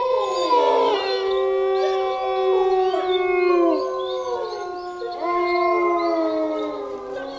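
Long drawn-out howling: held notes that slide down in pitch at their ends, with a new howl rising in about five seconds in.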